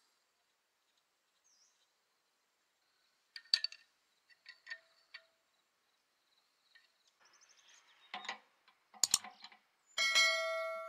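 Metal engine parts clinking and knocking as they are handled, ending in one loud ringing metal clang near the end. A bird chirps faintly early on.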